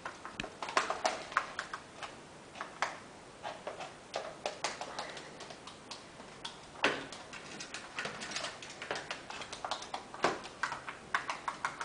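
Cockatiel's claws clicking and scrabbling irregularly on a hard surface as the bird makes its way through a training tube, with a few louder knocks about 7 and 10 seconds in.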